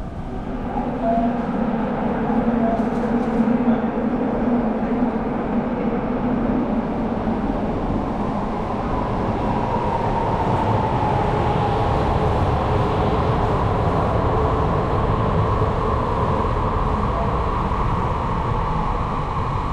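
Kyoto subway train running: a steady rumble and rush of rail noise, with a tone that rises and falls about halfway through.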